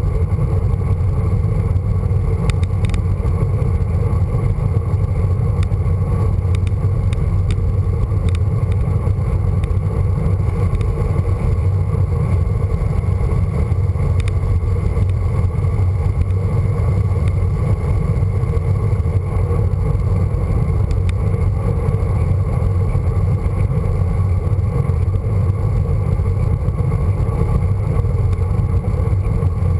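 Wind rush and road noise from a bicycle moving along tarmac, picked up by a camera on the handlebars: a steady, loud low rumble.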